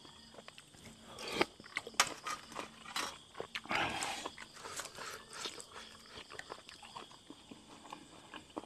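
Close-up mouth sounds of a man chewing boiled buffalo skin: repeated wet clicks and crunching, with a longer, louder wet sound about four seconds in.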